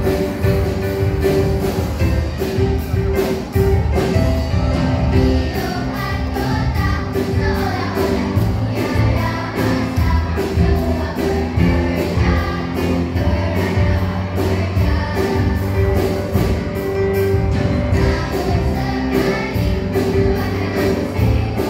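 A children's choir singing together over instrumental accompaniment with a steady beat.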